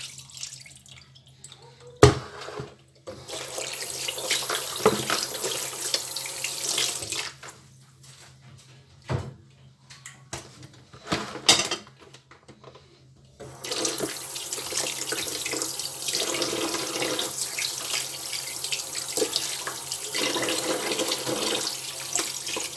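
Tap water running into a kitchen sink while meat is washed by hand, with a sharp knock about two seconds in and a few clunks in the middle; from about halfway through the tap runs steadily.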